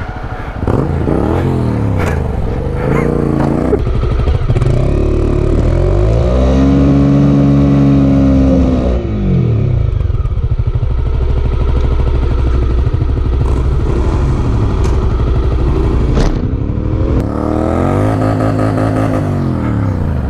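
Honda motorcycle engines on a sandy dirt track, revving up and falling away several times in long sweeps of pitch. A single sharp knock comes about sixteen seconds in.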